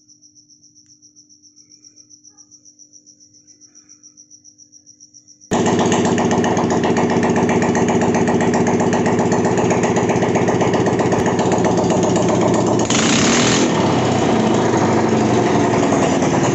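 Crickets chirping faintly, then, about five and a half seconds in, a Hero Duet scooter's single-cylinder four-stroke engine cuts in abruptly, loud and running steadily, with a brief hissing burst later on.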